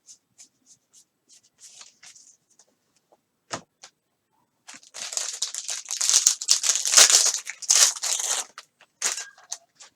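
Foil wrapper of a trading-card pack being torn open and crinkled, a loud crackling that runs for about four seconds from roughly halfway in. Before it, light ticks and a sharp click of cards being handled.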